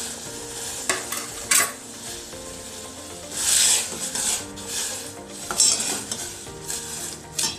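Pan of water boiling with ginger and garlic, with several sharp clinks and a longer rattling rush about three and a half seconds in as whole spices are tipped in and stirred with a spoon.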